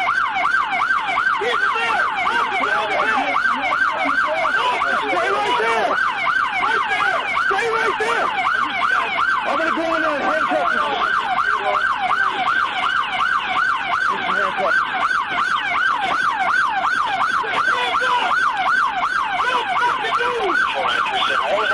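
Police car siren on yelp, a fast rising-and-falling wail repeating about three to four times a second without a break, with a second, fainter siren underneath.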